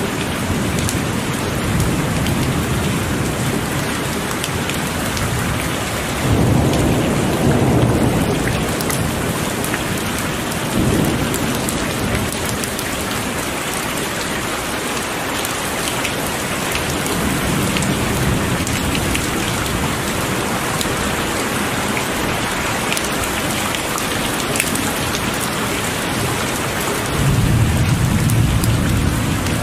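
Heavy rain falling steadily, with low thunder rumbles rolling in several times, the loudest about six seconds in and near the end.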